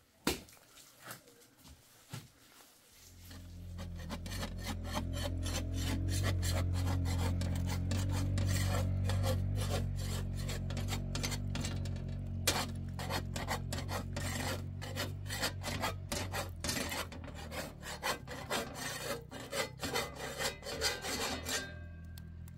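A metal spatula scrapes and clicks on a saj, a domed iron griddle with flatbread baking on it. The scraping is dense and stops suddenly shortly before the end. Under it a steady low hum sets in about three seconds in.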